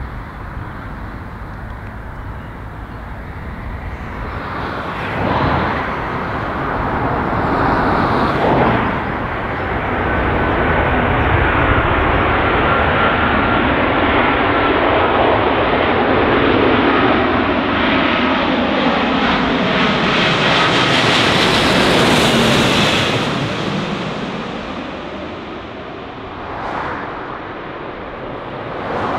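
Airbus A350-1000 jet airliner on final approach with its Rolls-Royce Trent XWB engines, growing louder as it comes in low overhead, with a steady whine over the engine noise. About three quarters of the way through it passes overhead and its pitch falls as the sound fades away.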